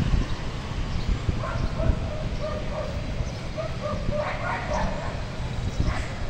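A dog yapping in a quick run of short, high barks that starts about a second and a half in and stops a few seconds later, over a steady low rumble.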